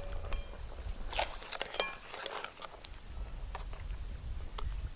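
Metal spatula clinking and scraping against a metal bowl and cooking pan as fried fish are slid into a simmering curry, then moving through the curry in the pan. Scattered light clinks, a few ringing briefly, over a low rumble.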